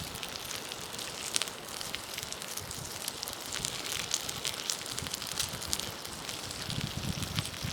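Wood campfire crackling, with sharp irregular pops over a steady hiss.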